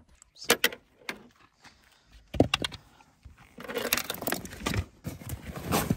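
Clicks, knocks and rattles of someone moving about in a car and handling gear: a few separate sharp knocks, then a busier stretch of rattling about halfway through.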